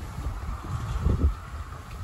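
Wind buffeting the microphone in irregular low gusts, a rumbling noise that swells and fades several times.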